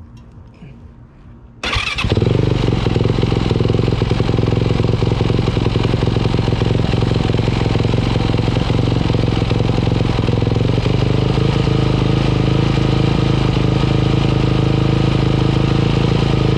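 2018 Yamaha YZ450F's single-cylinder four-stroke engine starting suddenly a little under two seconds in, then running steadily, freshly serviced with new oil and a new spark plug.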